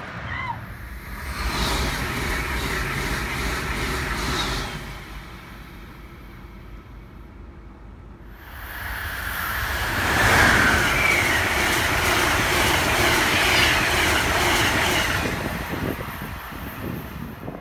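Amtrak trains passing at track speed on electrified main-line track: a loud rush of wheels on the rails, heard twice. The first pass comes about a second in, and the second, louder and longer, comes about eight seconds in.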